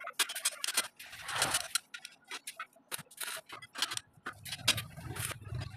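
Square steel tube bars and small offcuts handled on a concrete floor: a string of light metallic clicks and knocks, with a longer scrape about a second in. A low rumble comes in near the end.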